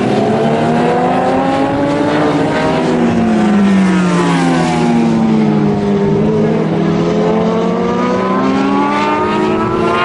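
Racing motorcycle engines running loud, their pitch climbing over the first couple of seconds, dropping back, then climbing again in the second half as the bikes accelerate and pass. More than one engine is heard at once.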